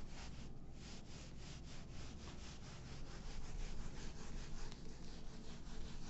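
Handheld whiteboard eraser wiping marker off a whiteboard in quick back-and-forth strokes, about four a second.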